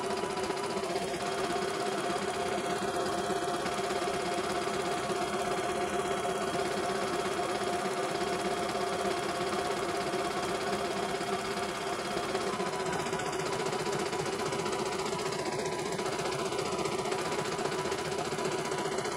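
CNY E900 computerized embroidery machine stitching a design at a fast, even pace, with a steady mechanical hum under the needle's rapid rattle.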